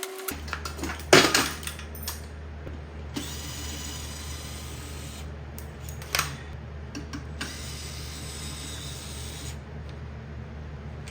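Power drill running in short runs of about two seconds each, with a sharp knock about a second in.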